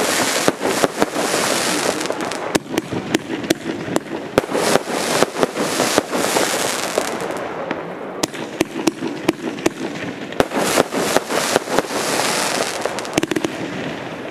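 Category 4 display fireworks going off: many sharp bangs and pops in quick succession over a steady hiss and crackle from the burning effects and ground fountains.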